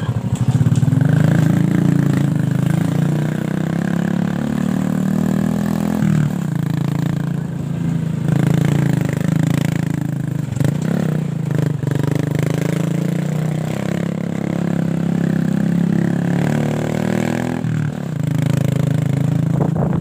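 Motorcycle engine running as the bike is ridden, its pitch dipping and climbing again several times with the throttle.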